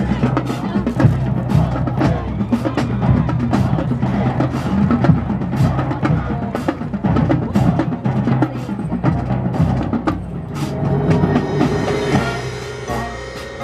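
Marching band percussion playing a fast, dense drum passage with bass drum. About ten seconds in, the drumming thins out and held notes come in.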